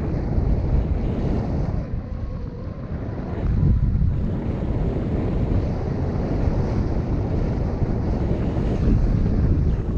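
Wind rushing over the camera's microphone during a paraglider flight: a steady low rumble that swells a little about three and a half seconds in.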